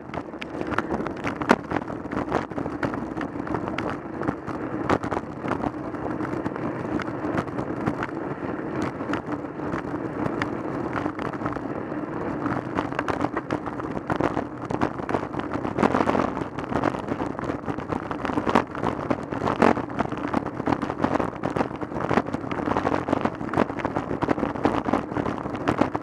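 Riding noise of a road bike picked up by a handlebar-mounted camera: a steady rumble of tyres on tarmac with frequent rattling clicks and knocks as the bike and mount jolt over the road surface.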